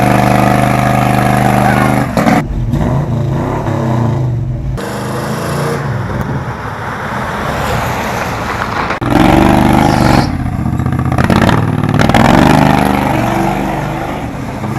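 A car engine running loud, holding a steady note for the first couple of seconds, then revving up and down, with the strongest revs about two-thirds of the way through.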